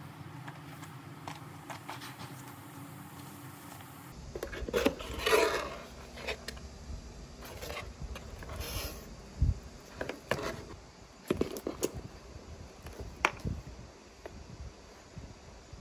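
Light clicks, taps and scrapes of small objects being handled, scattered and irregular. The background noise changes abruptly about four seconds in.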